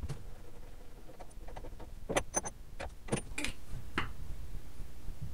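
A handful of sharp metallic clicks and knocks, some with a brief high ring, as metal clock parts are handled and fitted, over a low steady hum.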